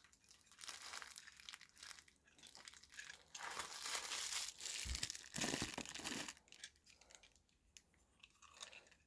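Plastic packaging crinkling and rustling as it is handled, busiest in the middle, with a soft knock about five seconds in; after that only a few faint clicks.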